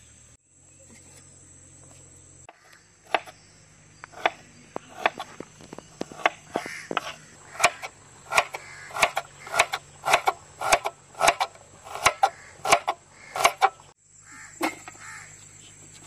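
Knife slicing shallots on a bamboo cutting board: a steady run of sharp knocks, about two a second, starting about three seconds in and stopping shortly before the end.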